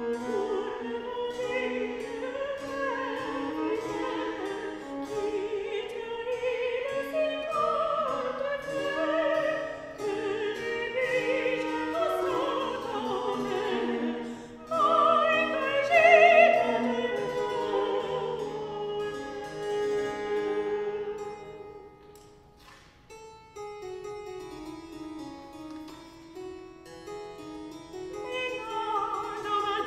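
Soprano singing a French Baroque cantata, accompanied by baroque viola and harpsichord, with a brief lull about two-thirds through.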